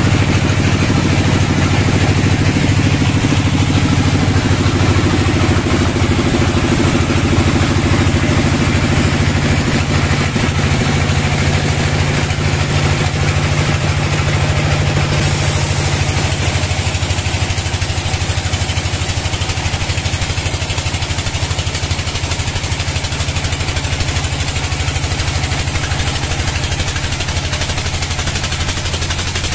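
Sawmill band saw running and cutting lengthwise through a log: a steady, loud machine drone with the blade's hiss through the wood.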